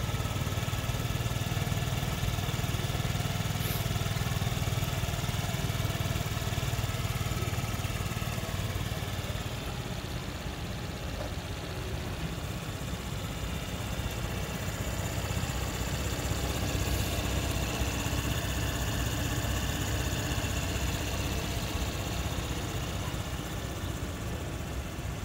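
2022 Honda Metropolitan 49 cc scooter's single-cylinder four-stroke engine idling steadily through its exhaust.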